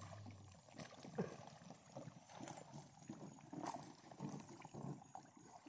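Faint, irregular water sloshing and small splashes as a fine-mesh fish trap net is hauled by hand through shallow water.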